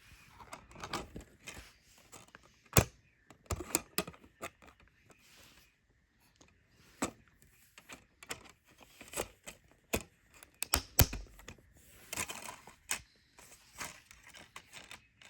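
Plastic DVD cases and box-set packaging being handled: irregular sharp clicks and snaps mixed with brief rustling, the loudest clicks about 3 seconds in and about 11 seconds in.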